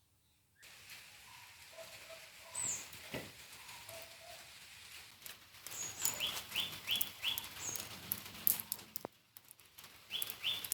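Birds chirping: short repeated calls, a quick run of four about midway and two more near the end, with scattered light clicks and knocks.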